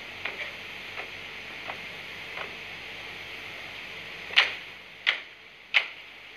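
Ceremonial honour guard's drill: a run of sharp, evenly spaced strikes about 0.7 seconds apart. They are faint at first and much louder from about four seconds in.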